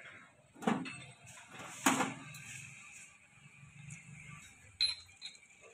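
Metal clinks and knocks of tractor differential parts being handled and seated in the cast differential case, with shims and bevel gears fitted by hand. Two louder knocks about a second apart near the start, then a couple of lighter clicks near the end.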